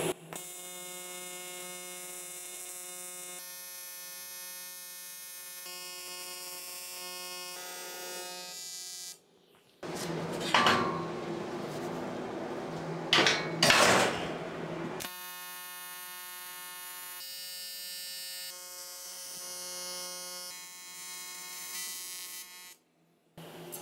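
AC TIG welding arc on aluminum from an Everlast Typhoon 230, a steady buzzing tone in two long stretches separated by brief cuts. Between them, for about five seconds, a harsher, louder noise with two loud peaks.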